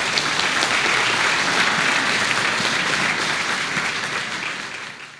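Audience applauding: dense, steady clapping from many hands that fades and cuts off abruptly near the end.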